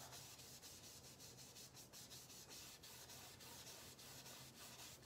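Faint scratchy brushing of a paint-loaded flat brush being stroked back and forth over a stretched canvas, with a faint steady low hum beneath.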